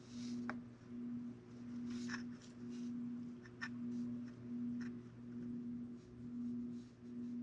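A low steady hum that swells and fades about once a second, with a few faint clicks and scrapes of a metal sculpting tool working soft modelling clay.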